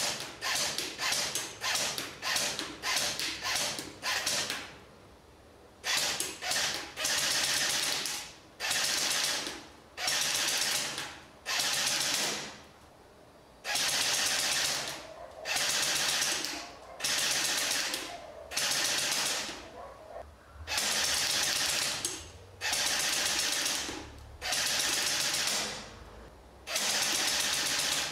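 Crosman Game Face GF460 airsoft rifle, a metal-gearbox electric gun, firing at a target. Rapid single shots fill the first few seconds, then about a dozen bursts of automatic fire, each roughly a second long, with short pauses between them.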